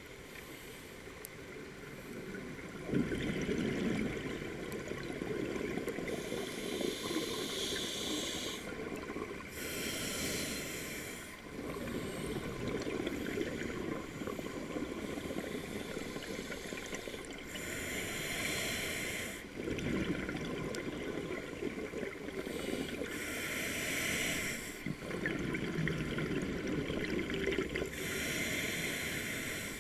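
Scuba diver's regulator breathing underwater: hissing inhalations alternate with longer stretches of rumbling exhaled bubbles, in several slow breath cycles.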